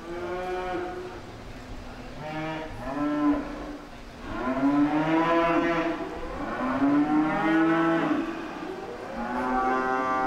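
Cattle mooing repeatedly: about five drawn-out calls, each lasting a second or two, the longest and loudest in the middle.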